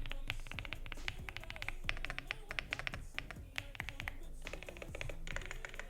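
Typing on a Yunzii AL75 Pro mechanical keyboard with Coco Creme V2 switches, PBT keycaps and an aluminium case, giving the creamy-sounding typing it is known for. Quick, steady runs of key clacks pause briefly about three seconds in and again a little past four seconds.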